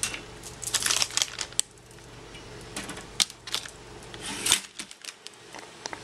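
Bread rounds being slotted into a Morphy Richards four-slice toaster: a run of light clicks, taps and rustles against the metal slots, with a sharper knock about four and a half seconds in.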